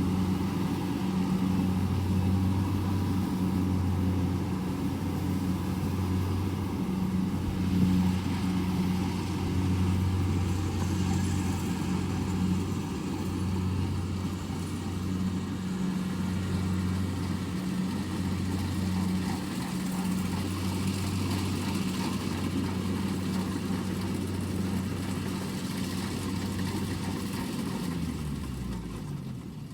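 Combine harvester's diesel engine running steadily with a low, slightly pulsing hum, then dropping in pitch and winding down near the end.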